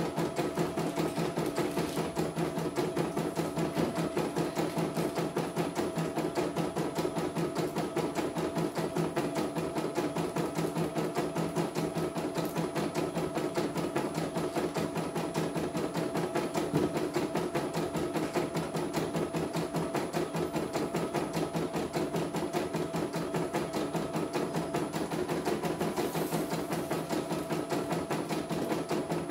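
CNY E900 portable computerized embroidery machine stitching a test design: a rapid, even rhythm of needle strokes with a steady hum beneath, as the hoop is shifted under the needle.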